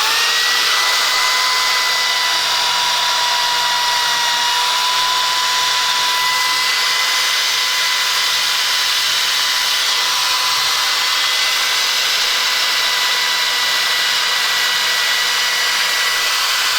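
A small electric motor running steadily: an even high whine over a loud hiss.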